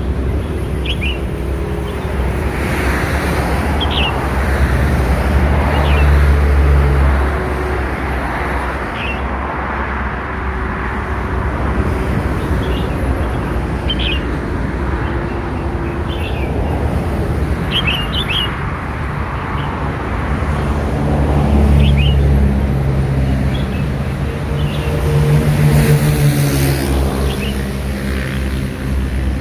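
Short, high chirps every second or two from a red-whiskered bulbul chick, over a loud, steady low rumble of engines and road traffic.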